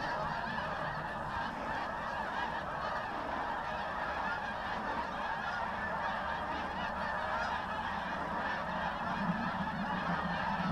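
A large flock of geese honking continuously, many calls overlapping into a steady din.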